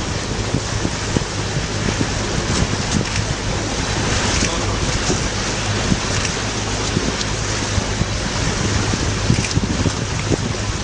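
Water washing against rocks: a steady rushing wash with small splashes and clicks throughout.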